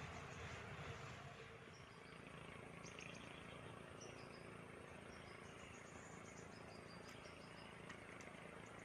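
Faint chirping of insects and small birds over a steady low hiss: brief high chirps, some in quick runs of pulses, some short notes falling in pitch.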